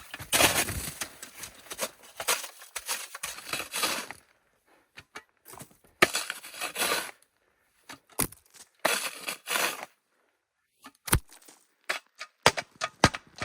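Irregular scraping and crunching of ground being cleared and flattened for a tent site, broken by short pauses, with several sharp knocks in the second half.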